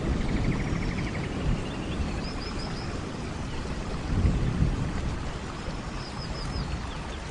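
Thunderstorm in a forest: steady rain hissing, with low thunder rumbling that swells at the start and most strongly about four seconds in.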